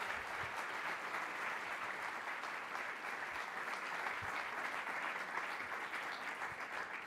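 Audience applauding steadily, many hands clapping at once, dying down near the end.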